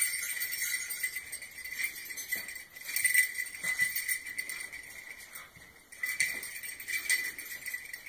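Small dog nudging a strap of bells hanging from a door handle, the bells jingling in several bursts.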